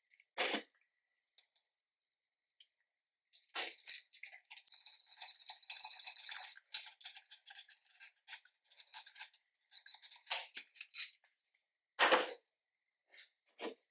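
Slime being worked by hand: a dense run of rapid crackling pops and clicks from about three and a half seconds to about eleven seconds, with a few separate short squishes before and after.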